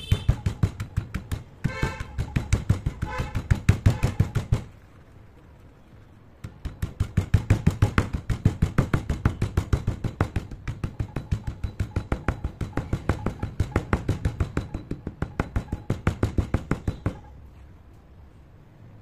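Stone pestle pounding broken chalk pieces in a stone mortar, crushing them to powder: rapid dull knocks about four to five a second. The pounding pauses for about two seconds about five seconds in and stops near the end.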